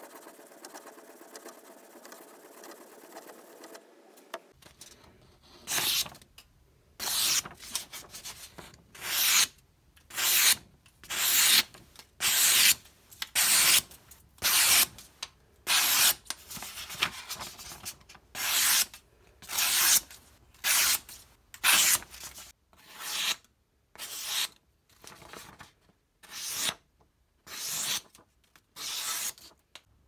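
A steel pocket-knife blade is stroked steadily across a whetstone. Then it slices through a sheet of paper in about twenty crisp, hissing cuts, roughly one a second, testing the sharpness of the edge.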